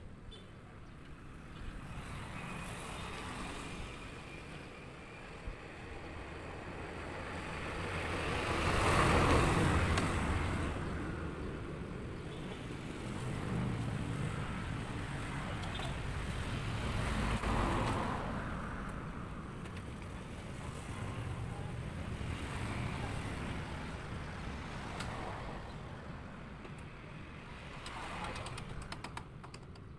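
Road traffic going by: vehicles pass one after another, rising and fading, the loudest about nine seconds in and another near eighteen seconds.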